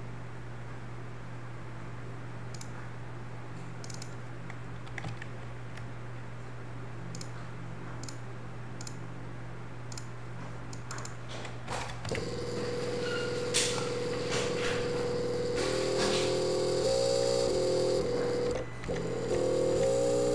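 Small DC motor under STM32 closed-loop velocity control: about twelve seconds in it starts running with a steady whine, which then steps up and down in pitch as the commanded speed changes. Before that, only a low steady hum and a few faint clicks.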